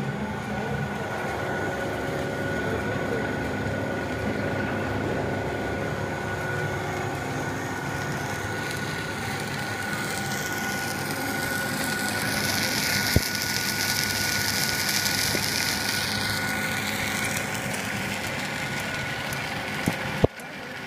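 Corn-snack filling extruder line running: a steady mechanical clatter with a constant high hum. A hiss rises over it from about ten to seventeen seconds in, with a single sharp click in the middle, and the sound drops off suddenly just before the end.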